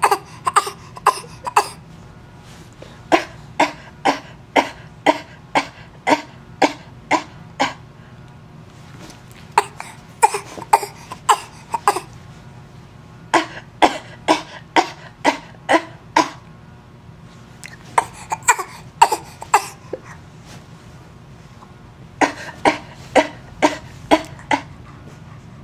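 Deliberate fake coughing: runs of short, sharp coughs, about two a second, in several bouts separated by brief pauses.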